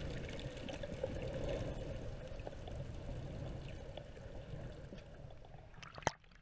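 Muffled underwater water noise picked up by a submerged camera: a steady low rumble with scattered faint ticks, slowly growing quieter. About six seconds in, one sharp knock as the camera breaks the water surface.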